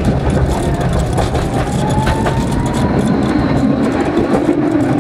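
Tram running along its rails, heard from inside the car: a steady rumble of wheels and running gear over the track, with a couple of sharp clicks about two seconds in and a faint rising whine.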